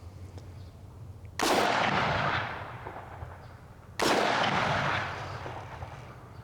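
Two rifle shots about two and a half seconds apart, each followed by a long echo that trails off over about a second.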